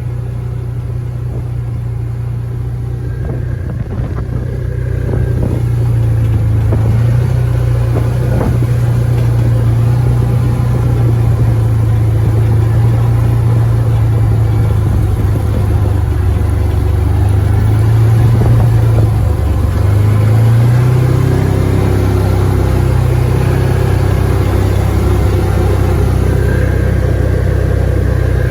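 Side-by-side UTV engine running as it drives, getting louder about five seconds in; its pitch dips and then climbs again about two-thirds of the way through.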